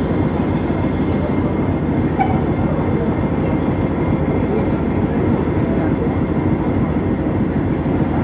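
Nilgiri Mountain Railway steam locomotive moving slowly through the station yard as it comes up to couple onto its carriages, a steady rumbling noise with no distinct chuffs.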